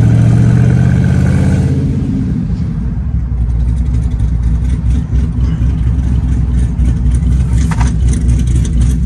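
Supercharged 6.2-litre V8 of a fifth-generation Camaro SS pulling strongly for about two seconds, then easing off into a rougher, lower rumble with a scatter of sharp exhaust pops and crackles.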